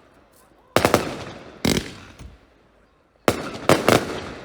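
Consumer firework cake (a compound battery) firing volleys of shells: two clusters of quick, sharp bangs, one about a second in and one just past three seconds in, each trailing off in a fading echo.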